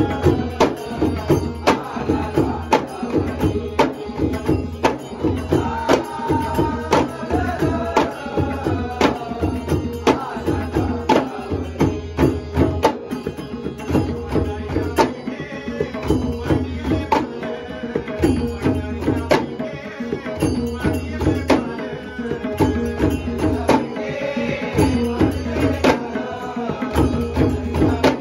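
Ghumat, skin-headed clay-pot drums, beaten together by a group in a steady, driving rhythm. A man's singing voice and a harmonium sound over the drums.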